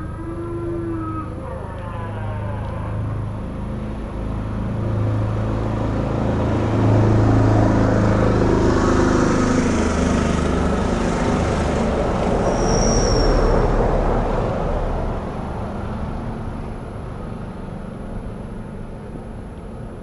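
Road traffic: a motor vehicle's engine and tyres pass along the road, swelling to a peak about halfway through and then fading away.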